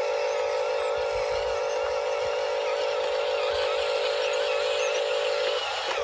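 Small electric motors and gearboxes of a Huina radio-controlled toy excavator whining steadily as it drives its tracks, stopping briefly near the end.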